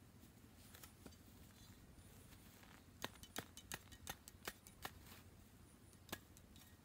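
Sharp snaps and crackles of a clod of grassy soil being pulled apart by hand, in a quick run from about three to five seconds in, with one more snap near six seconds.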